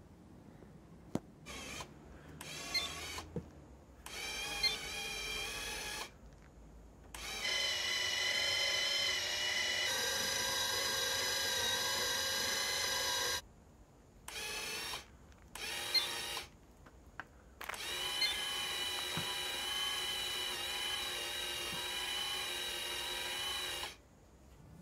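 The electric motor driving a homemade conveyor belt, running with a steady whine and stopping and starting abruptly several times. The longest runs last about six seconds, and a few sharp clicks come between the runs.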